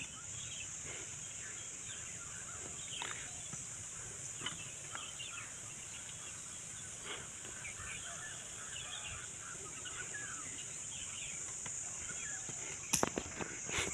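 Open-air rural ambience: faint bird chirps here and there over a steady high hiss, with a few sharp clicks near the end.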